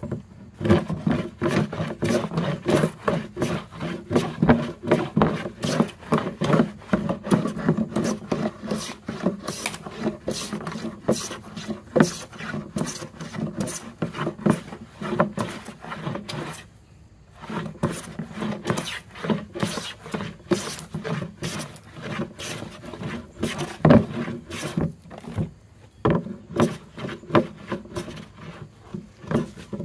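Stanley No. 5 jack plane with a really sharp blade shaving wood, stroke after stroke in quick succession, with a short pause about 17 seconds in.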